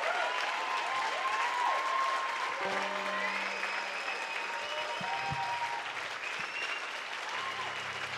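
Concert audience applauding and cheering, with whistles rising and falling over the clapping. A steady low held note comes in about three seconds in.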